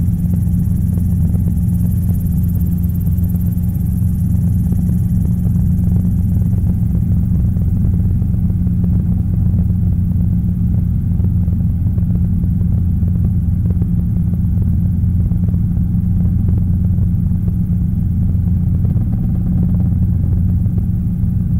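Robinson R22 helicopter in cruise flight, heard from inside the cockpit: a steady, loud drone of its piston engine and rotors with a low hum, unchanging throughout.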